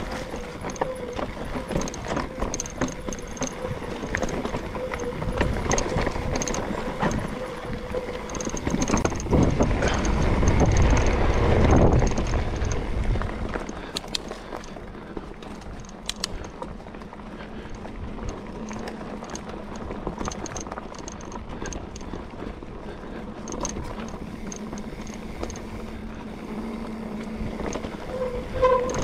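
Mountain bike rolling down a dirt and leaf-strewn forest trail: tyres on the dirt, with the bike rattling and knocking over bumps the whole way, and a louder stretch of low rumbling around the middle.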